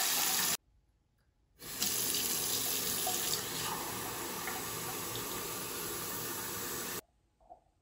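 Bathroom faucet fitted with a Kinetic Reactor tap aerator, running a steady stream of water into the sink. The sound breaks off for about a second near the start. It then resumes with the stream splashing into a drinking glass held under it, and cuts off suddenly near the end.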